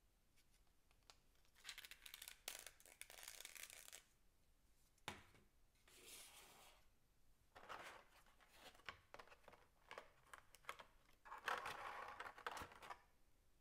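Clear plastic blister packaging crinkling and crackling as it is handled and a small figure is pulled out of the tray. It comes in several separate bursts with a sharp click about five seconds in, and the longest, loudest burst comes near the end.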